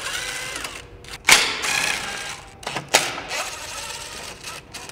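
DeWalt cordless power driver backing out 10 mm bolts: three short runs of its motor, each about a second long.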